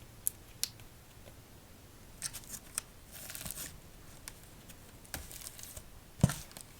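Playing-card decks in their boxes being handled and set down: scattered light taps and clicks, a short rustling scrape about three seconds in, and a louder knock near the end.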